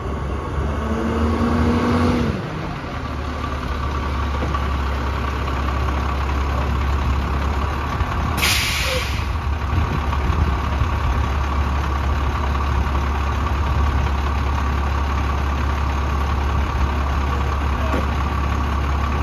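A 2003 International school bus's DT466 straight-six diesel running as the bus pulls up and stops, with a short sharp air hiss a little over eight seconds in from the air brakes being set, then idling steadily.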